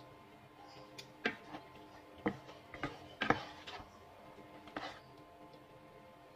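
Wooden spatula knocking and scraping against a nonstick frying pan while stirring a thick cream sauce: a handful of irregular taps, the loudest about three seconds in.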